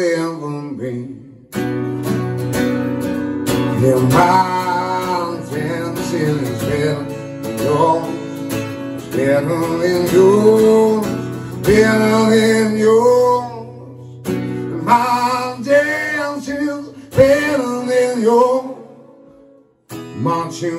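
A man singing while strumming an acoustic guitar, the sound dropping out briefly about a second in and again near the end.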